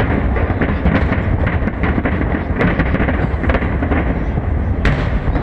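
Fireworks going off in quick succession: a continuous low rumble of shell bursts with many sharp cracks, one especially sharp bang about five seconds in.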